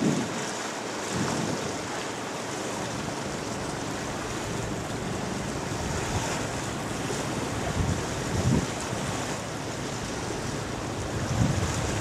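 Steady rushing hiss of river water and passing ships' wash, with wind buffeting the microphone in low gusts about a second in, around eight seconds and near the end.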